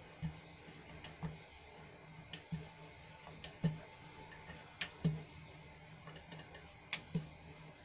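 Wooden rolling pin rolling puri dough thin on a round wooden board: faint rubbing, with a dozen or so light, irregular taps of the pin against the board.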